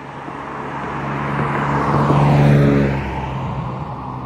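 Nissan 350Z's 3.5-litre V6 engine and tyres as the car drives past. The sound grows louder to a peak about two and a half seconds in, then drops in pitch and fades as it goes by.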